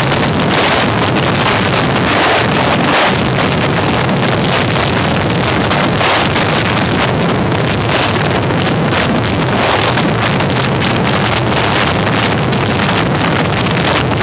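UH-1Y Venom helicopter hovering low and setting down: its twin turbine engines and four-blade main rotor run loud and steady, with rotor wind buffeting the microphone.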